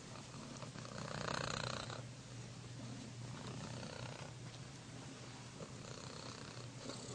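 Domestic cat purring, swelling more strongly about a second in.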